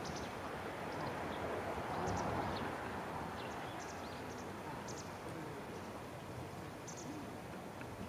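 Small birds chirping in short, high calls scattered throughout, over a steady wash of outdoor background noise that swells briefly about two seconds in.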